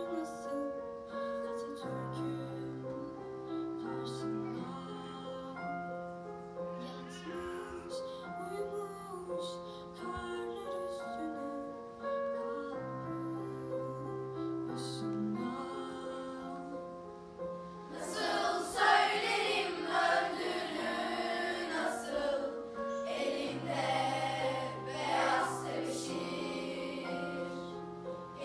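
Piano and violins playing a slow, held introduction; about two-thirds of the way in, a middle-school mixed choir comes in singing over them.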